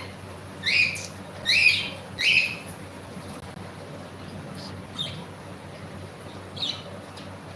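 Pet cockatiel chirping: three quick, loud calls in the first two and a half seconds, then two fainter calls later.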